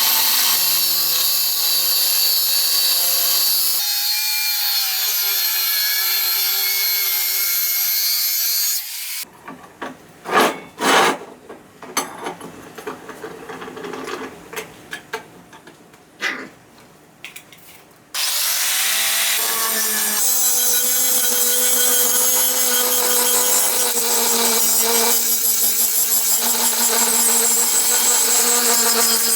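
An angle grinder grinding steel with a steady hiss and motor whine. It stops about nine seconds in, leaving a stretch of scattered knocks and clatter, then starts again a few seconds before the halfway mark of the second part, whining as it spins up, and grinds on steadily.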